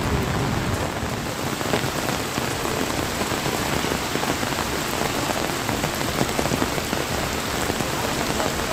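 Heavy rain falling steadily, a dense, even noise that does not let up.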